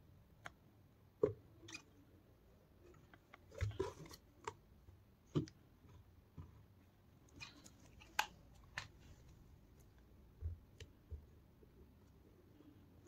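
Scattered light clicks and taps of hand work: a hot glue gun being worked along the edge of a plastic MP3 player module panel set into a fibreboard box, and fingers pressing the panel in. The sounds are faint and sparse, with a small cluster about four seconds in.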